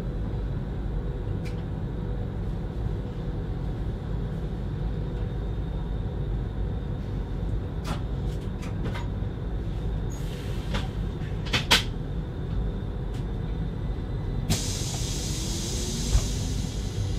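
Stadler FLIRT 3 electric multiple unit running along the line, heard from the driver's cab: a steady low rumble with scattered clicks and knocks, the loudest about twelve seconds in. A hiss starts abruptly about fourteen and a half seconds in.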